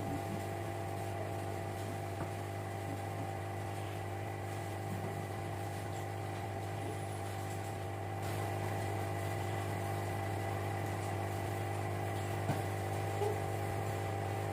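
Small aquarium powerhead pump motor running with a steady electric hum, getting slightly louder a little past halfway.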